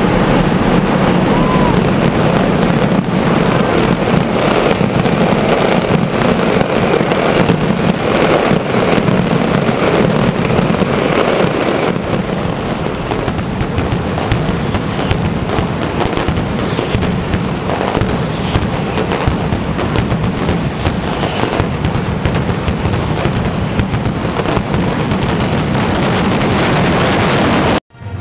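Mascletà: a dense barrage of firecrackers going off in rapid succession, loud cracks and bangs packed so close they merge into one continuous crackling roar.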